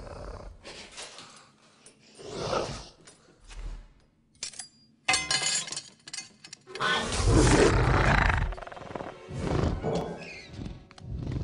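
A steel ladle drops onto a tiled floor about five seconds in, clattering and then ringing for about a second. Film score music and a velociraptor's roar from the soundtrack follow.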